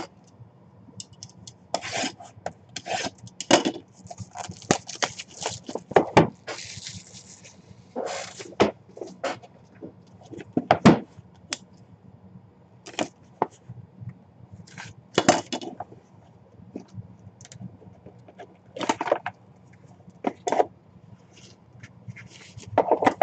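Hands opening a small cardboard box: scattered scrapes, rubs and taps of cardboard, with a longer stretch of rustling between about four and seven seconds in.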